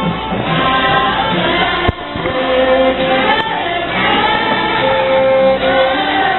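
Inspirational song playing: voices singing long held notes over instrumental backing, with a brief click about two seconds in.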